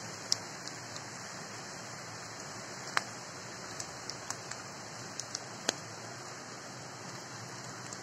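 Steady rushing of a shallow river over stones, with scattered sharp ticks.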